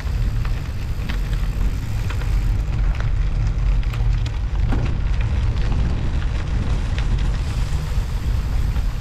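Wind rumbling steadily on the microphone of a bicycle-mounted action camera while riding, with studded winter tyres crackling and clicking over a snowy road surface.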